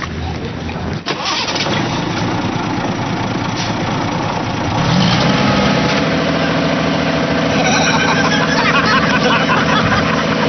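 Dump truck engine running, rising to a steady higher pitch about five seconds in as the tipper bed is raised. A rushing hiss of sand sliding out of the bed comes near the end.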